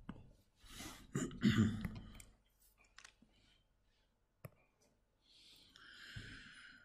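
A few quiet, separate clicks of a computer mouse, with a brief low voice about a second in and a soft hiss near the end.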